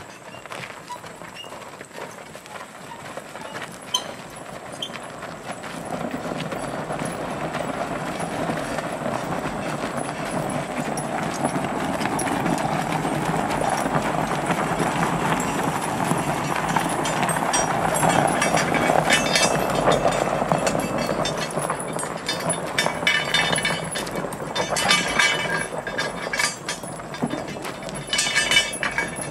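A pair of harnessed mules walking on gravel, their hooves clopping, while the tractor tire they drag grinds and scrapes over the gravel. The scraping swells to its loudest about two-thirds of the way through as the team passes close, then fades into a run of sharp clinks and clops near the end.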